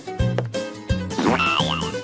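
Bouncy children's cartoon background music with a regular bass line, and a short wavering, warbling cartoon sound effect a little past halfway.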